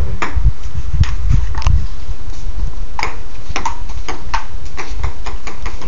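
Ping pong rally: the ball clicks sharply off the paddles and the table in an irregular string of taps, over a loud low rumble.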